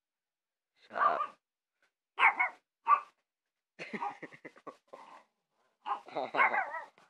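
Small dogs barking: single sharp barks about a second apart, then a quick run of short yaps, then a closer cluster of barks near the end.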